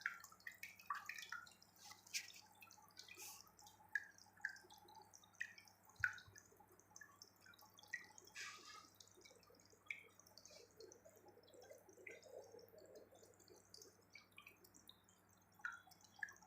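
Water from a small pump-driven homemade tabletop fountain dripping and trickling into its tub: faint, irregular drips and small splashes, a few each second.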